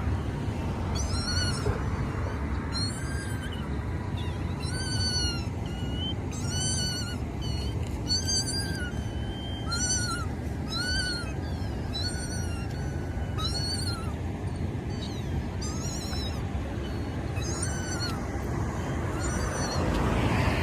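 A short, high-pitched animal-like call that rises and falls, repeated about once a second, over a steady low rumble.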